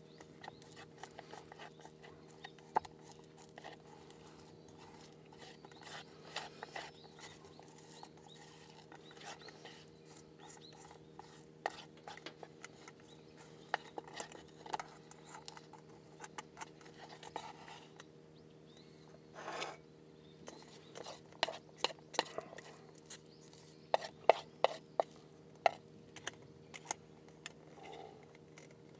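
Eating utensils clinking, tapping and scraping against dishes and cookware in a long irregular string of light clicks, with a louder cluster about 24 seconds in, over a faint steady hum.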